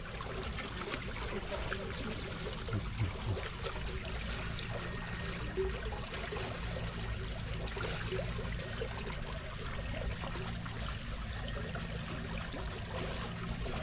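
Water trickling and pouring steadily into a small field channel, with a faint low hum underneath.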